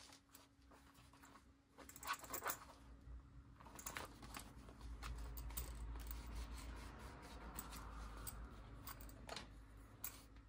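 Faint leatherworking sounds: light clicks and taps of tools and leather being handled, and from about four seconds in several seconds of steady rubbing on leather.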